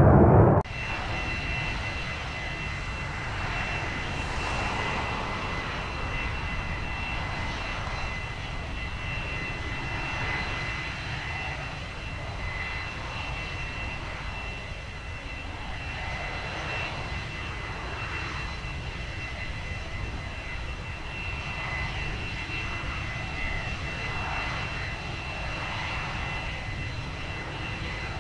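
Draken International A-4 Skyhawk jet engine running steadily, a constant high whine over a low rumble.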